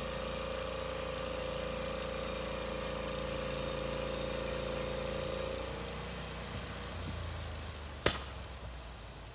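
Norwood HD36 bandsaw mill running under load as the blade cuts through a pine log: a steady engine note with a held whine and sawing hiss. A little over five seconds in the whine sags and fades, the hiss drops, and the mill runs on more quietly. One sharp clank about eight seconds in.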